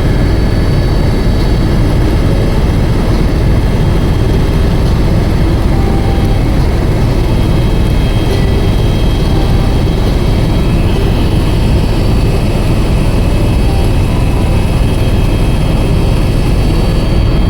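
Helicopter engine and rotor noise heard inside the cabin in flight: a steady, loud drone with a faint high whine.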